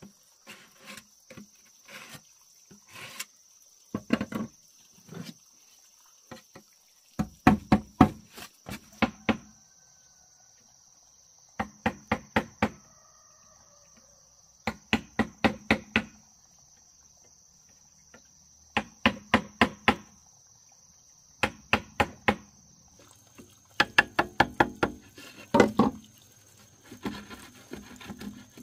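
Bursts of rapid knocking blows on wood, about four to eight strikes per burst, recurring every two to three seconds, as in chopping or hammering. A steady high-pitched insect drone runs underneath.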